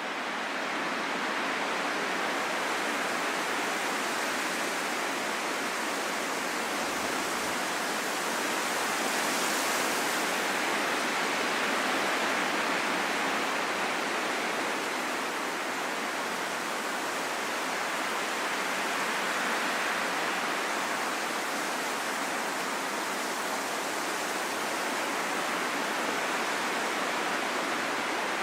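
Wind blowing as a steady, even rush with slow, gentle swells, fading in over the first second.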